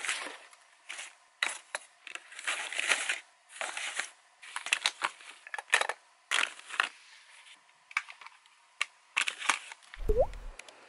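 Plastic cosmetics (compacts, blush cases, tubes and lipsticks) being dropped and shuffled into a fabric suitcase: irregular clattering, rustling and sharp clicks in bursts. A short low thump with a rising tone comes near the end.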